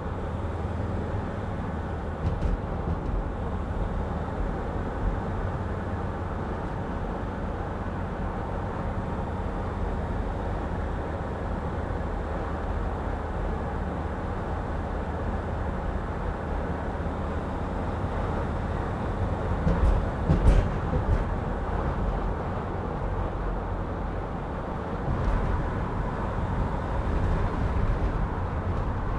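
Road and engine noise inside the cab of a moving 2006 Mercedes Sprinter van: a steady low rumble, with a few louder knocks about two-thirds of the way through.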